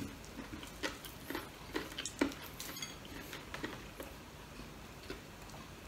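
Faint crackles and clicks of crispy fried chicken wings being pulled apart by hand and eaten: about a dozen short, sharp ticks, scattered unevenly.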